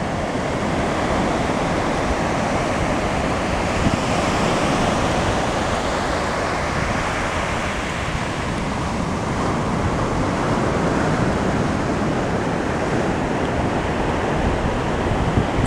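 Ocean surf breaking and washing up a sandy beach, a steady rushing wash, with wind rumbling on the microphone.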